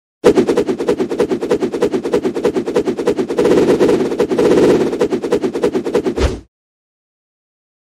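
Animation sound effect of a rapid flurry of punches, about ten hits a second, running for about six seconds, then cutting off suddenly.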